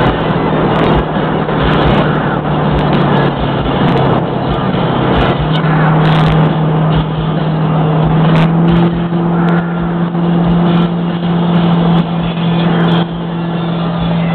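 Car engine cruising at highway speed, heard from inside the cabin: a steady low drone over loud, continuous road and wind noise.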